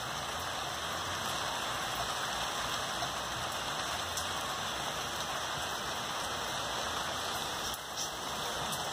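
Steady rain falling on garden plants and potted succulents, an even hiss with a brief dip in level near the end.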